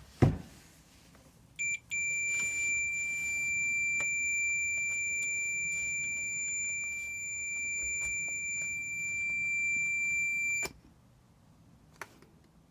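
A knock, then a Fluke 10 digital multimeter's built-in beeper sounding a steady high-pitched tone: a short blip, then held for about nine seconds before cutting off suddenly, as the meter is tested with its leads after its switch joints were resoldered.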